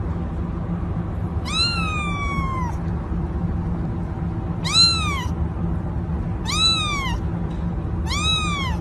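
A cat meowing four times: the first meow long and drawn out, the other three short, over a steady low background noise.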